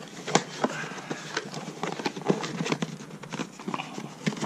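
Cardboard packaging being handled and pulled apart: irregular rustling, scraping and light taps.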